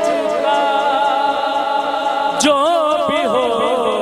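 A man singing an Urdu naat, a devotional poem in praise of the Prophet, into a microphone, drawing out long notes with a wavering, ornamented pitch; a new sung phrase begins about two and a half seconds in.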